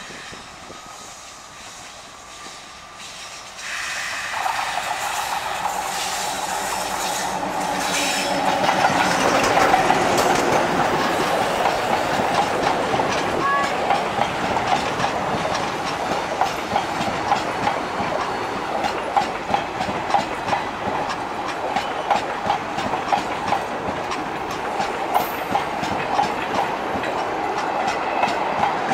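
Diesel locomotive engine humming as it approaches. A few seconds in, this gives way to the loud passing of a passenger train close by: a steady rush of wheels on rail with rapid, regular clicks over the rail joints.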